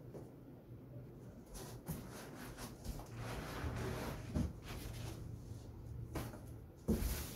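Rustling of cardboard and packing material as a speaker stand is lifted out of its shipping box, with a few sharp knocks and a louder thump near the end.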